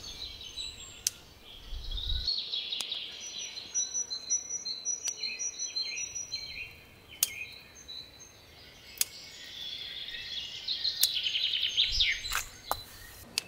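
Garden birds singing and chirping in repeated high phrases, with several sharp clicks of scissors snipping snow pea pods off the vine.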